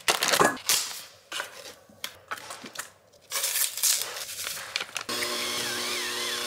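Foil and paper packaging crinkling and rustling as cream cheese and a seasoning packet are emptied into a steel bowl, then about five seconds in a Breville electric hand mixer switches on and runs with a steady whir.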